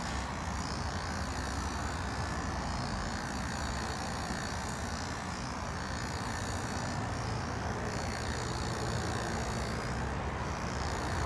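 Corded electric hair clippers buzzing steadily as they cut through a dog's coat.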